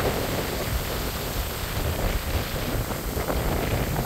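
Gusty wind buffeting the microphone over a steady rushing noise, with no distinct events.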